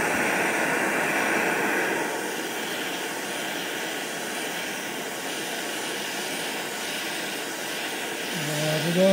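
Handheld Bernzomatic gas torch burning with a steady rushing hiss as its flame heats a steel running-board bracket to free a stuck pivot pin; it turns a little quieter about two seconds in. Near the end a man starts humming.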